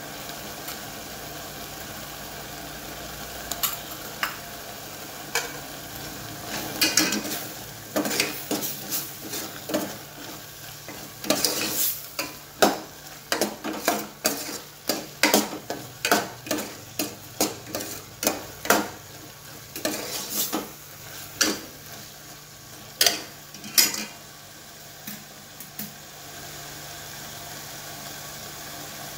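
Steel ladle stirring prawns and masala in a stainless steel pot, clinking and scraping against the pot about once or twice a second over a steady sizzle. The clinking stops a few seconds before the end, leaving only the sizzle.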